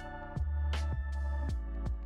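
Electronic background music: a steady drum beat, roughly two hits a second, over held synth chords.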